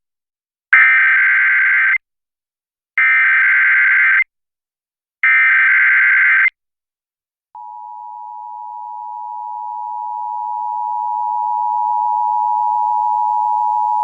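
Emergency Alert System Required Monthly Test on an FM radio stream. Three bursts of the SAME digital header data, each a little over a second long with short gaps between them. About seven and a half seconds in, the steady two-tone EAS attention signal starts, growing louder over a few seconds and then holding level.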